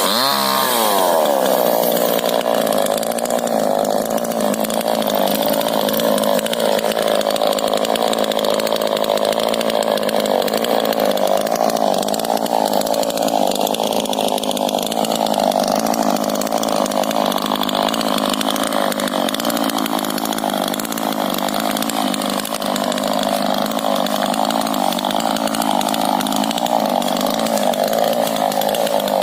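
Two-stroke chainsaw revving up and down near the start, then running steadily at high revs under load, cutting through a rubber tree trunk.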